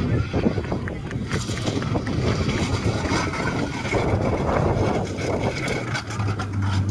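Rally car engine running hard while the car slides and spins, its tyres smoking, with a high tyre squeal in the middle and wind buffeting the microphone.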